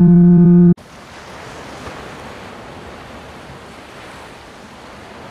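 A loud, low, steady horn blast cuts off suddenly less than a second in. After it comes the even wash of ocean surf breaking on a beach, with some wind.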